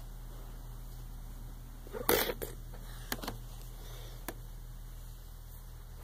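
Sharp plastic clicks and knocks from toy blasters being handled, in a loud clatter about two seconds in, followed by a few single lighter clicks over the next two seconds.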